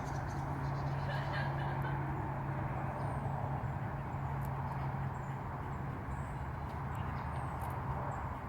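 Birds calling, with a steady low hum underneath.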